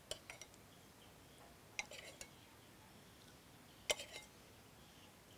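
Metal ladle clinking against the soup pot and bowl as soup is ladled out: three short clusters of clinks, the loudest about four seconds in.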